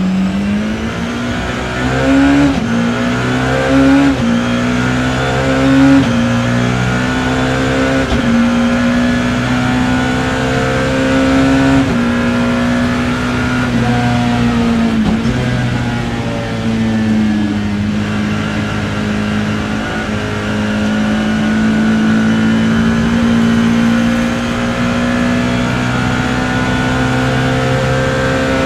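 BMW E30 M3 race car's four-cylinder engine heard from inside the cockpit, accelerating hard through several quick upshifts in the first six seconds, then held at high revs along a long stretch, with a brief lift about halfway through.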